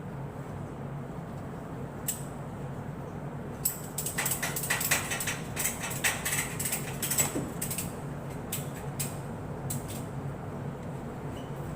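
A steady low mechanical hum with a burst of rattling clicks from about four to eight seconds in, and a few single clicks before and after.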